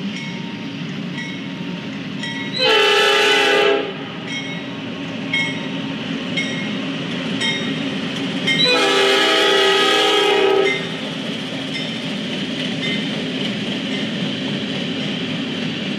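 Freight locomotive's multi-chime air horn blowing two blasts, a short one about three seconds in and a longer one of about two seconds near the middle, over the steady rumble of the approaching train. A grade-crossing bell rings about once a second throughout.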